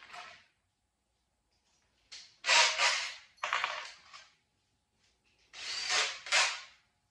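Cordless drill-driver driving screws into a particleboard side table, running in two short bursts, about two seconds in and again near the end.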